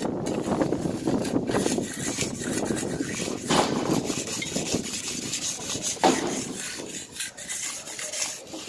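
Irregular rough scraping and rubbing strokes, with a couple of sharper strokes partway through.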